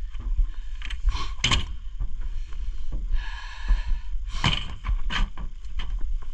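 Pickup truck's soft folding tonneau cover and tailgate being handled on a Toyota Tundra. There are sharp clacks and knocks of the cover's frame and latches, two about a second in and two more past the middle, with a longer scraping rasp between them, over a low rumble.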